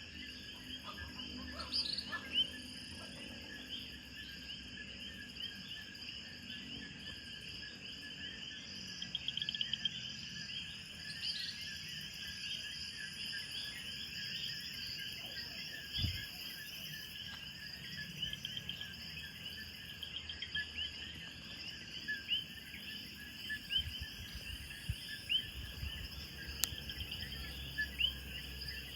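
A dense chorus of insects chirping, many rapid overlapping chirps at several steady pitches. A few low thumps break in, the loudest about halfway through and several more near the end.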